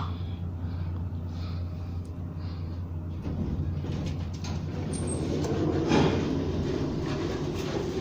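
Thyssenkrupp hydraulic passenger elevator running: a steady low mechanical hum, with a rougher rumble of the car and its machinery building up in the second half.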